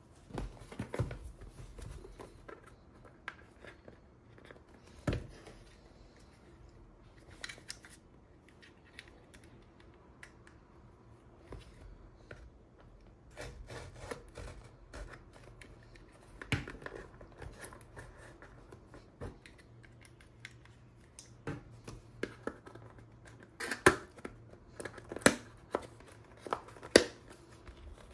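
A cardboard retail box being opened by hand. A small cutter scrapes and slices through the seal on the top flap, with paper and cardboard rustling, then several sharp cardboard clicks and snaps near the end as the tucked lid flap is worked open.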